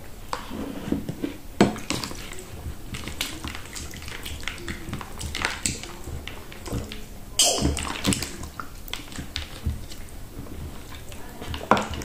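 A person drinking water from a glass close to the microphone: repeated gulps and swallows, with one louder sound about seven and a half seconds in.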